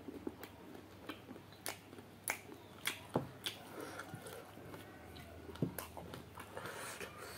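Close-up chewing of chicken curry with wet lip smacks and sharp mouth clicks, scattered irregularly about a second or less apart.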